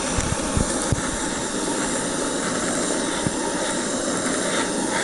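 Handheld butane blowtorch on a camping gas canister burning with a steady hiss as its flame is held to lumps of charcoal to light them.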